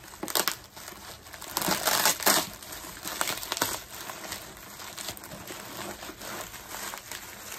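Packaging crinkling and rustling as a parcel is unwrapped by hand, with a louder burst of crackling about two seconds in and softer rustling after.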